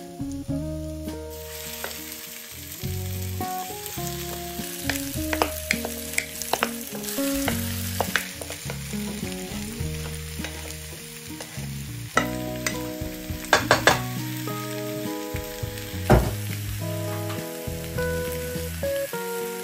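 Food sizzling in a hot frying pan, with sharp clicks and scrapes of a utensil stirring it, in clusters through the first half and again about two thirds of the way in. Background music plays under it.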